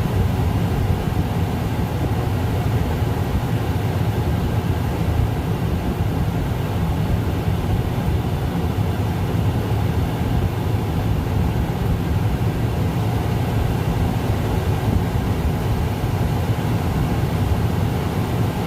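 Tractor engine running steadily at raised RPM, driving a grain cart's unloading auger through the PTO while wheat is unloaded; a constant low-pitched running sound with no change in pitch.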